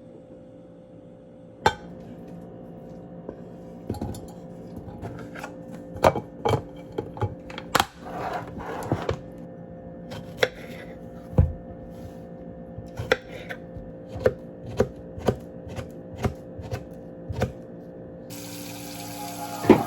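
Kitchenware knocking and clinking at an irregular pace, over a steady low hum.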